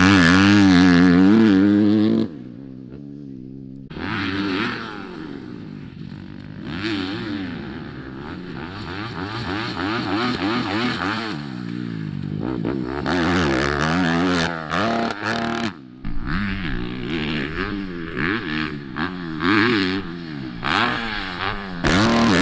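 Motocross bike engine revving up and down as it is ridden around a supercross track, the throttle opening and closing over and over. It is loud as the bike passes close for about the first two seconds, then cuts off abruptly and goes on farther away, with several sudden breaks.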